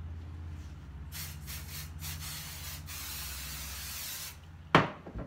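Aerosol spray-baste adhesive can hissing in a few short bursts, then one longer spray of a couple of seconds. A sharp thump follows near the end.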